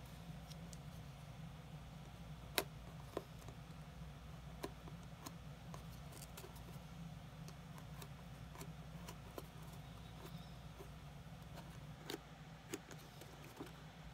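Scattered, irregular small clicks and snaps as a knife blade cuts through the old welt stitching of a Goodyear-welted shoe to free the welt; the sharpest snap comes about two and a half seconds in. A low steady hum runs underneath.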